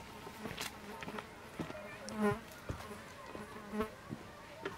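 A flying insect buzzing briefly close by: a wavering buzz about two seconds in and a shorter one near four seconds, over scattered light clicks and crunches.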